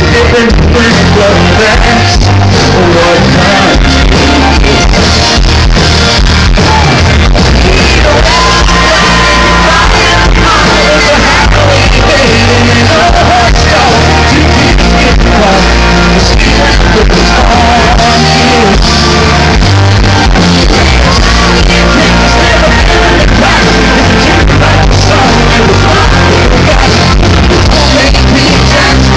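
Loud live country-rock band playing with a lead singer, while the crowd shouts and sings along.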